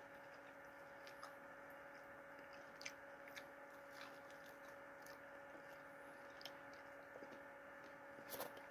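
Faint chewing of fried chicken: a few soft, scattered mouth clicks over a steady low hum.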